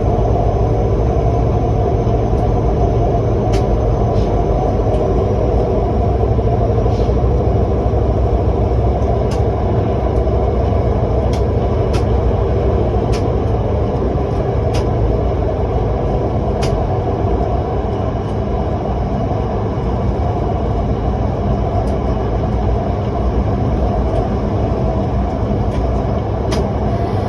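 SRT Red Line electric commuter train running along the line: a steady low rumble with a faint steady whine, crossed by sharp clicks at irregular intervals.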